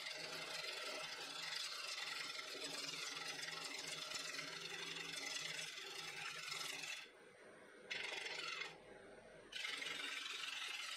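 A gouge cutting a spinning wooden bowl on a wood lathe, a steady scraping hiss of shavings coming off over the lathe's low motor hum. The cut breaks off twice for about a second, a little past halfway, then resumes.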